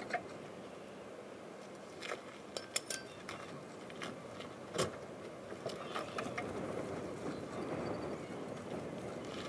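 Ratchet straps being undone on a kayak roof rack: scattered clicks and clacks of the metal ratchet buckles over a steady background hiss.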